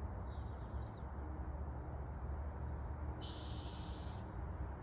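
An unidentified bird calling: a quick run of short, high, falling chirps in the first second, then a single harsh, buzzy high note lasting about a second, starting about three seconds in, over a steady low rumble.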